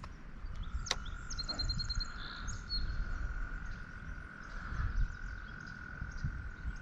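A frog's long, steady trill on one high note, with a quick run of bird chirps about a second and a half in, over a low rumble of moving water.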